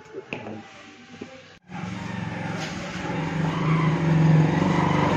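Motorcycle engine running steadily and growing louder as it comes closer, starting abruptly about a second and a half in.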